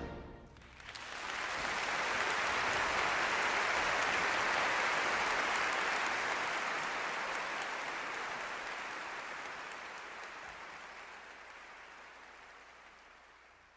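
Applause that swells in about a second in, holds, then slowly fades away.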